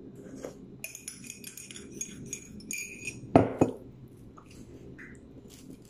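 Metal teaspoon clinking against a ceramic coffee mug for a couple of seconds, with a light ringing. A little after three seconds in come two louder sharp knocks.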